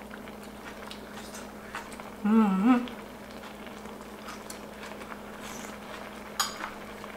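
Stew simmering and sizzling in an electric skillet, a steady bubbling hiss. Chopsticks and a spoon click lightly against the pan a few times, and a short hummed "mm" comes about two seconds in.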